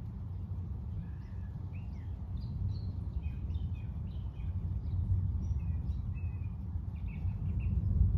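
Birds chirping repeatedly in short calls over a steady low rumbling noise that swells slightly partway through and near the end.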